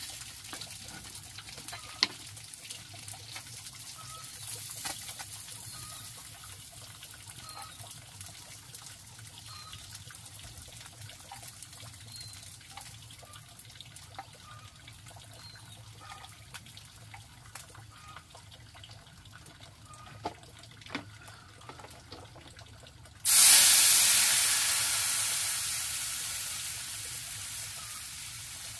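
Water poured from a kettle into a hot frying pan over a wood fire, hitting with a sudden loud sizzling hiss about 23 seconds in that slowly dies away. Before that, a low background with light clicks of chopsticks on the pan and plate, and faint repeated chirps.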